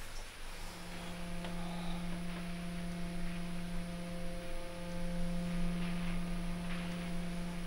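A low, steady hum with fainter higher overtones, coming in during the first second and holding on, with a few faint soft ticks over it.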